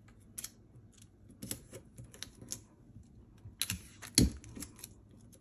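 Paper pattern sheets shuffled and tapped on a table with scattered small clicks, then clear tape pulled from a desk tape dispenser and torn off, with a sharp clack about four seconds in, the loudest sound.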